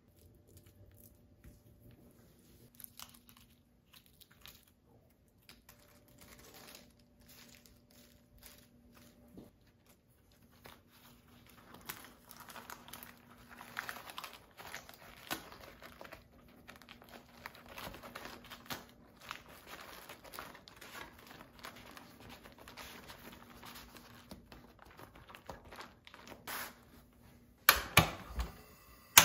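A large flour tortilla handled on a wooden cutting board: a spoon scrapes sauce across it, then it is folded and rolled tight by hand, with soft irregular crinkling and rustling. Near the end, a few sharp loud clicks from a portable butane stove's igniter.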